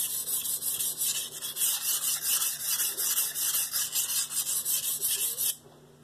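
Stamped-steel nakiri blade scraping back and forth on a 320-grit Shapton Pro whetstone with light pressure, in quick even strokes about four a second, working up a burr on the dull edge. The strokes stop suddenly about five and a half seconds in.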